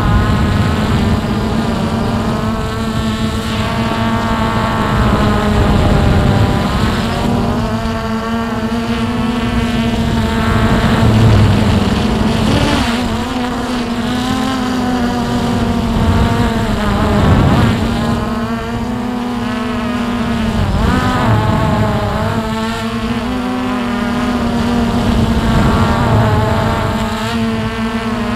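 Hubsan X4 Pro H109S quadcopter's motors and propellers whining, heard through its onboard camera, the pitch rising and falling again and again as the motors keep changing speed. The drone is circling out of control in the toilet bowl effect. Wind rushes on the microphone underneath.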